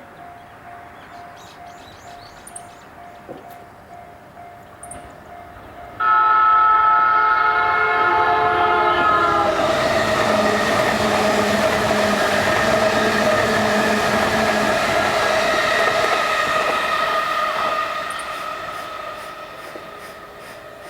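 Level crossing warning bell ringing with a steady rapid pulse. About six seconds in, an E233-series electric train sounds a loud horn whose pitch sags slightly as it comes on, then passes with loud running noise from wheels and motors. The train noise fades over the last few seconds while the crossing bell keeps ringing.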